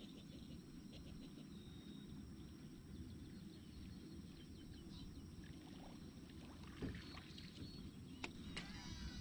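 Faint low rumble of water and wind around a small boat drifting on open water, with birds chirping faintly. A few sharp clicks come near the end, followed by a short run of bird calls.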